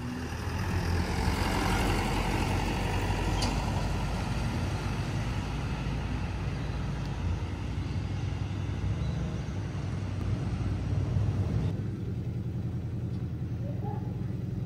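A vehicle in motion: a steady low rumble with running noise above it. The higher part of the noise drops away suddenly about twelve seconds in.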